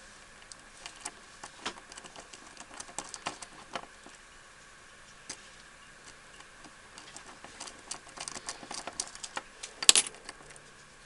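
Small metal lock parts clicking and ticking as a deadbolt's lock cylinder is handled and its retaining ring worked off. The clicks are scattered at first and come thicker toward the end, with one sharper clack about a second before the end.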